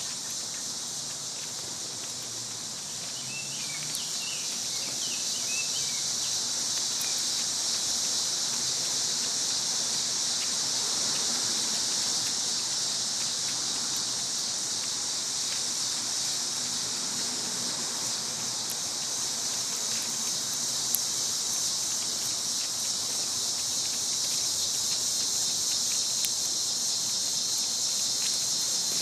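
Steady high-pitched insect chorus of a summer forest. A few short bird chirps come about four to six seconds in, and there are occasional faint ticks.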